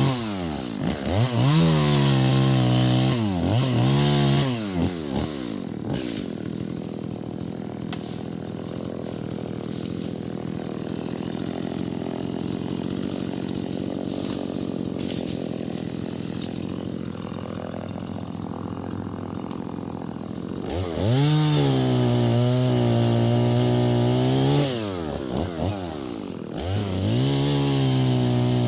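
Two-stroke chainsaw revved hard and let drop several times, then running lower and quieter for about fifteen seconds, before being revved high again near the end with a couple of short drops.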